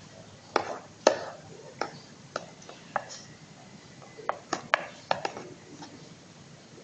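Chopsticks knocking and clicking against a bowl while stirring slime, about a dozen irregular sharp taps, several of them close together a little past the middle.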